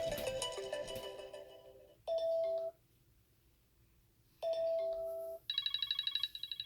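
iPhone ringtones and alert tones played one after another: a melodic ringtone fading out over the first two seconds, then a short two-note chime, heard twice with a pause of about two seconds between. About five and a half seconds in, a fast, high, pulsing trill of a tone begins.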